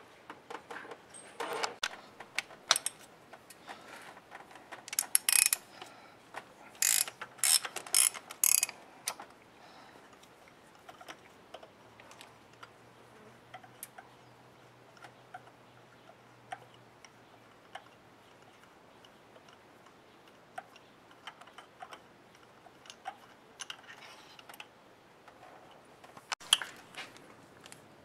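Ratchet wrench clicking in loud bursts as a spark plug socket on an extension is worked in the plug wells, then scattered lighter clicks and taps of the metal tools being handled, with another cluster of clicks near the end.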